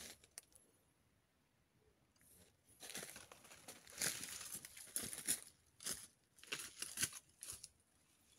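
Footsteps through dry leaf litter as a person walks close past and away. A string of irregular leaf rustles starts about two seconds in, is loudest around the middle, and stops shortly before the end.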